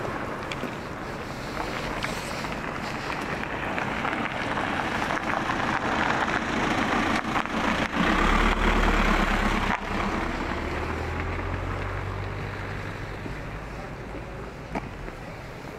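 A motor vehicle passing close by on a village street: tyre and engine noise swells to a peak about halfway through, a low engine hum comes in at the peak and lingers for a few seconds, then the sound fades away.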